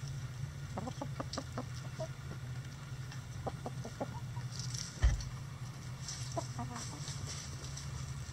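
Backyard hens clucking softly in short, scattered calls while they forage, over a steady low hum. About five seconds in there is a single sudden low thump.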